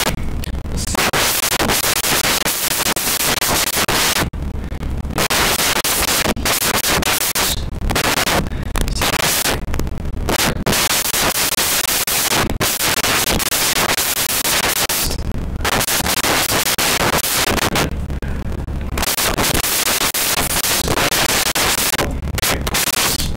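Loud, harsh static-like noise covering all pitches, cutting out abruptly for brief moments several times, with only a low rumble left in the gaps.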